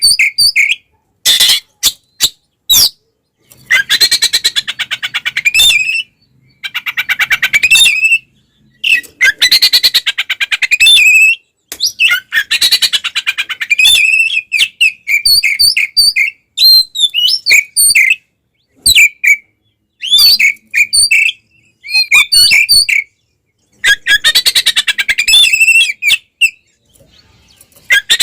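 Oriental magpie-robin (kacer) singing loudly in its agitated fighting song. Harsh, rapid rattling phrases of a second or two alternate with short, sharp whistled notes.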